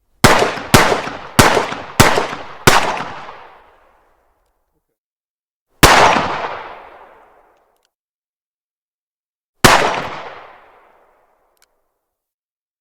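9mm pistol firing: five shots in quick succession about half a second apart, then two single shots a few seconds apart, each with a long echoing tail.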